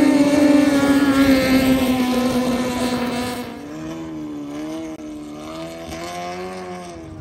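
A longtail racing boat's open four-cylinder engine running hard as the boat passes, its pitch sagging slightly as it goes by. About halfway through it gives way to a quieter engine note that rises and falls in pitch.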